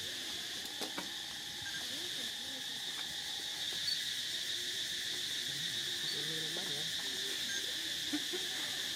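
Steady, high-pitched drone of an insect chorus in the trees.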